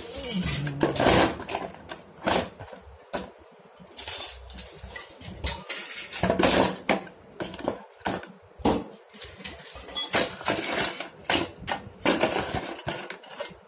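Small metal tools and parts clinking and clattering as they are picked through and set down, in a run of irregular knocks and rattles.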